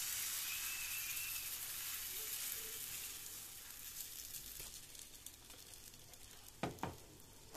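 Pesarattu (green-gram dosa) batter sizzling on a hot pan as it is spread with a ladle, the sizzle fading after a few seconds, with a couple of light knocks near the end.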